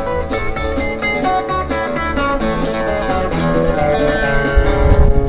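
Live country band playing an instrumental break led by guitar over a steady drum beat; the bass end swells near the end.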